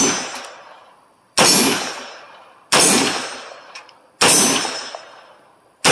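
Foxtrot Mike FM9 9mm pistol-caliber carbine fired in slow, deliberate single shots, about one every second and a half. Each shot is a sharp crack followed by a ringing tail that fades over about a second.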